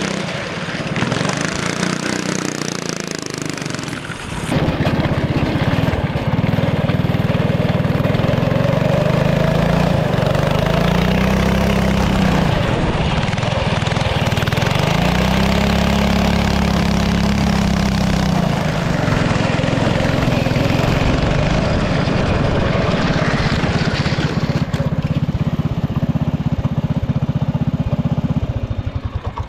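Small gasoline engine of a motorized drift trike running hard, its revs rising and falling as it drifts, over a steady rushing noise. It gets suddenly louder about four seconds in.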